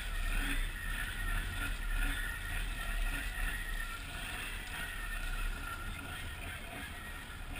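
Snorkeled Can-Am Outlander ATV's V-twin engine running steadily as the machine wades through deep water, with water sloshing around it.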